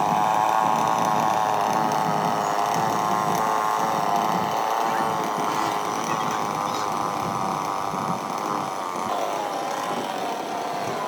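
Chainsaw engine running steadily.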